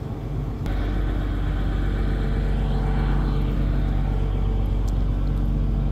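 Cog railway train's diesel engine running at a steady speed, a constant low hum that grows louder about a second in.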